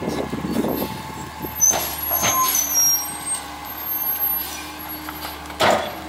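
McNeilus rear-loader garbage truck on a Peterbilt 348 CNG chassis running its packer cycle: the engine hums and a steady hydraulic tone sets in about two seconds in as the blade sweeps and compacts trash in the hopper. High squeaks and knocks come from the moving blade, and a loud burst of noise sounds near the end.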